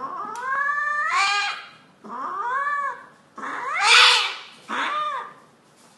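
Domestic cat yowling in distress while held down on a vet's exam table: four long, drawn-out cries, the first the longest and the one about four seconds in the loudest and harshest.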